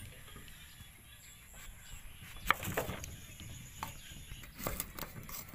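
Kitchen knife cutting through firm, unripe green mango and tapping the wooden cutting board: a handful of crisp, irregularly spaced cuts starting about two and a half seconds in.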